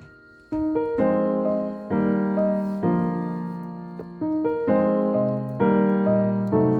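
Background music: gentle piano playing chords, a new chord struck about once a second, each ringing and fading.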